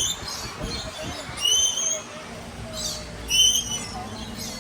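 Parrot calling: short, shrill, whistle-like calls repeated about every two seconds, three times, over a faint murmur of people.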